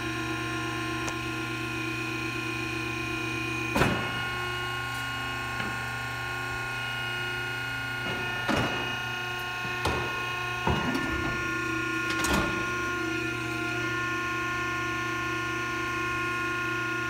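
Cessna O-2A's retractable landing gear extending during a ground gear test: a steady mechanical hum throughout, broken by about five clunks as the gear doors and legs move and lock, the loudest about four seconds in.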